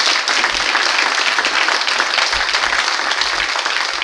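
Live audience applauding, a loud, dense clapping that holds steady.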